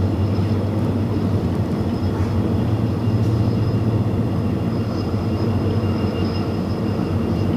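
Diesel-hauled express train running: a steady rumble of wheels on the track with a low hum and a faint steady high whine over it.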